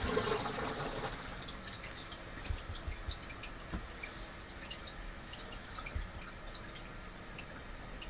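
Water draining out of a Kuppet twin-tub portable washing machine onto a wet-bath shower floor: a brief splash about the first second, then scattered drips and trickling.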